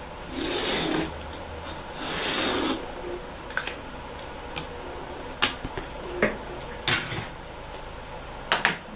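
Erasable marking pen rasping across a cotton dish towel along an acrylic ruler in two strokes of under a second each. After them come scattered light clicks and taps as the pen and ruler are handled and set aside.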